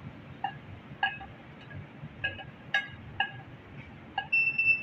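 A metal ladle clinking and tapping against a ceramic plate and a steel pot as ground spices are scraped off the plate, about seven short ringing clinks at uneven intervals. Near the end, a short, loud, high-pitched squeak as the ladle scrapes across the plate.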